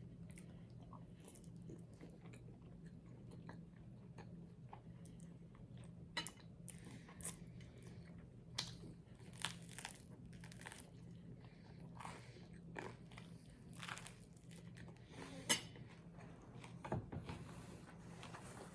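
A person chewing close to the microphone, with scattered crisp crunches from biting into crunchy garlic bread, over a faint steady low hum.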